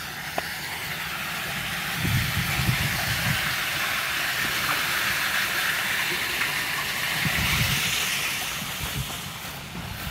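Rainwater runoff running along the gutter and pouring into a curb storm-drain inlet: a steady rushing hiss that swells in the middle and fades near the end, with a couple of low rumbles.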